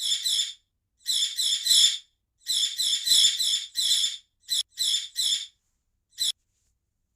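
Bird sound effect: short high-pitched chirps in quick runs of two to five, with brief pauses between the runs.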